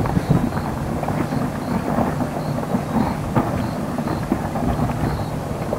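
Merapi's lava-dome rockfalls: glowing blocks tumbling down the volcano's flank give a steady low rumble scattered with many small crackles and clatters.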